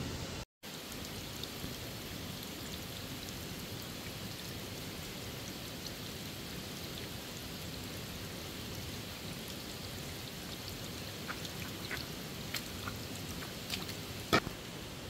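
Steady rain with rushing stream water, a constant hiss that cuts out for a moment just after the start. A few sharp clicks near the end, one louder than the rest.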